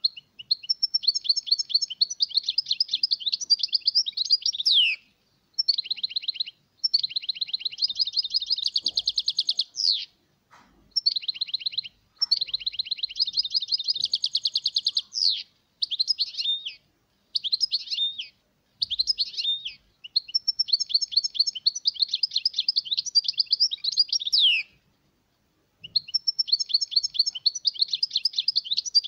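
European goldfinch singing: rapid, liquid twittering phrases of a few seconds each, separated by short pauses, with buzzy trilled passages mixed in.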